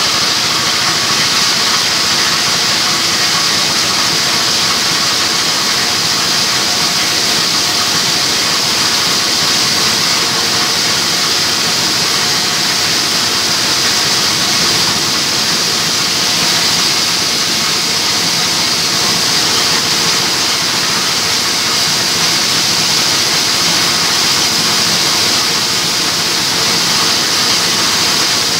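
Diesel-driven multifunction hammer mill running at speed while milling material to powder: a loud, steady machine sound with a strong high hiss.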